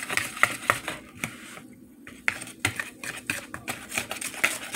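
Wire whisk stirring pancake batter in a bowl, its wires clicking and tapping quickly against the bowl's side, with a brief pause a little before the middle.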